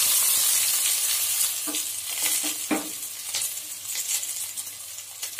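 Sliced red onions sizzling in hot oil in a pan, loudest at the start and dying down, with a few short scrapes and taps of stirring.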